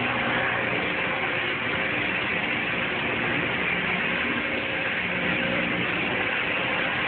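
Beriev Be-200 amphibian's two turbofan jet engines running steadily as the aircraft taxis slowly on the ground, a constant rushing hiss with a faint underlying hum.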